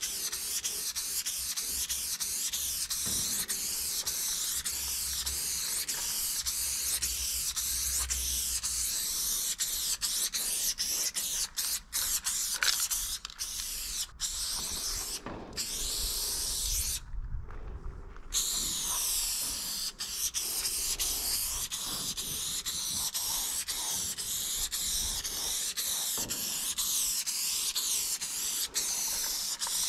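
Aerosol spray paint can hissing as blue fill is sprayed on, held in long continuous sprays with a few short breaks around the middle where the nozzle is let go, the longest about a second.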